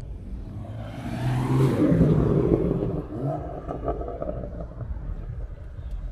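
A car driving past: its engine and tyre noise swell about a second in and fade again by three seconds, over a low background rumble.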